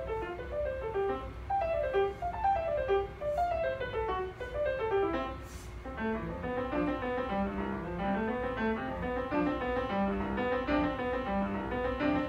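Grand piano played solo in a classical style: quick, continuous runs of notes, with lower notes joining in from about halfway through.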